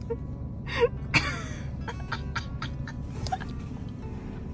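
Background music with a few short, sharp sounds over it, the loudest about a second in.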